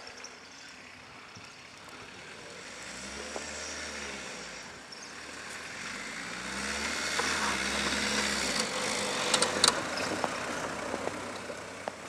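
Ford Escort diesel van's engine revving hard as it drives through snow, its pitch climbing, dropping briefly about five seconds in, then climbing again and growing louder as the van comes close and passes. A few sharp clicks near the end.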